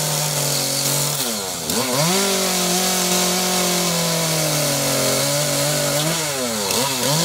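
Two-stroke chainsaw carving wood, its engine held at high revs. The pitch drops and climbs back about a second and a half in, then dips and rises several times in quick succession near the end.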